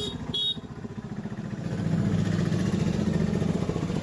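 A motorcycle engine running close by, swelling louder over the first two seconds and then holding steady. A short beep sounds right at the start.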